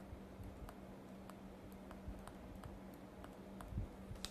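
Faint ticking of a pen stylus tapping and writing on a drawing tablet, a few light clicks a second, over a steady low electrical hum, with a soft low thump near the end.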